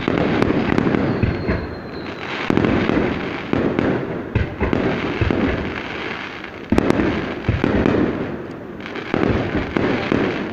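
Fireworks display going off without a break: dense crackling and popping with repeated heavier bursts, swelling louder several times.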